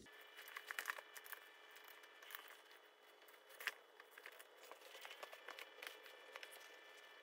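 Faint crinkling and scattered light clicks of a vintage Coach leather haversack being handled and looked over, with one sharper click a little past the middle, over a faint steady hum.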